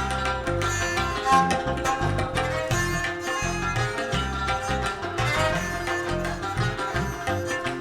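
Live Central Asian folk music: a plucked lute plays a busy melodic line over a steady hand-drum rhythm, with no singing.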